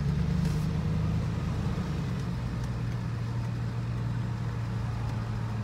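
Low, steady hum of a car's engine and road noise heard from inside the cabin while creeping along in bumper-to-bumper freeway traffic.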